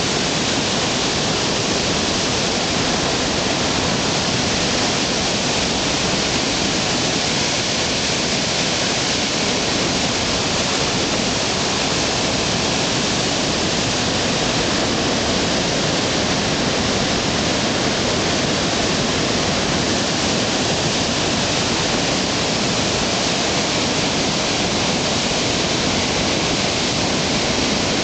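Water pouring through the open sluice gates of the Rance tidal barrage: a loud, steady rush of churning white water.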